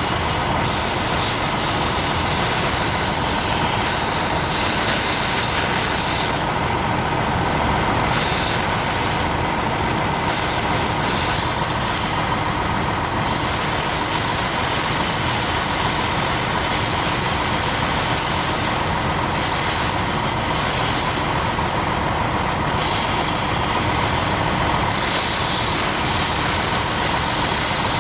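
Compressed air hissing steadily and loudly from a leak at the semi truck's transmission air solenoid, the sign of a leaking solenoid or its fitting.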